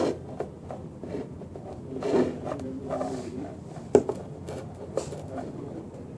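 Scattered small clicks and rubbing handling noises at close range, with a sharp click about four seconds in.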